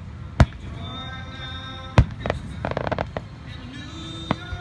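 Aerial fireworks shells bursting: two sharp bangs, about half a second and two seconds in, followed by a spell of crackling. Background music runs underneath.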